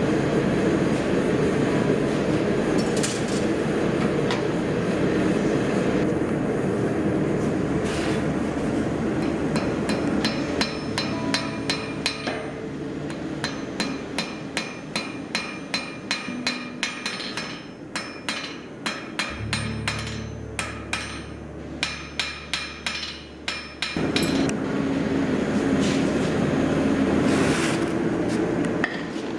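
A gas forge running with a steady rushing noise. About ten seconds in, a hammer strikes glowing steel on an anvil at about two blows a second, each with a bright ring, for some fourteen seconds. Then the forge's rushing noise returns.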